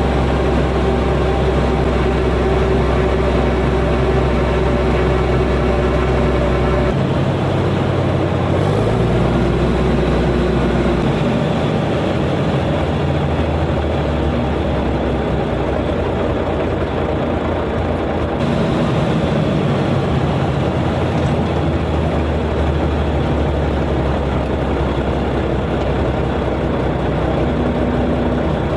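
Komatsu bulldozer's diesel engine running loud and steady, its speed shifting a few times about seven to eleven seconds in.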